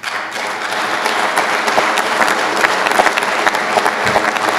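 Audience applauding: a steady crowd of hands clapping, starting suddenly and staying even.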